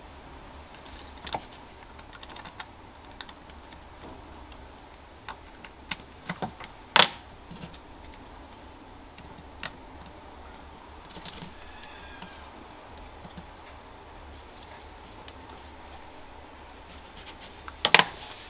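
Small, irregular clicks and taps of metal tweezers against the rails and plastic sleepers of a model railway turnout kit, with a sharper click about seven seconds in and another near the end.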